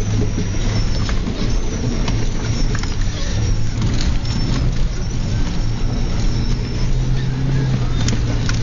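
Car engine pulling steadily under load, heard from inside the cabin, as the car drives along a rutted, muddy dirt track. Occasional sharp knocks and rattles come from the car jolting over the ruts.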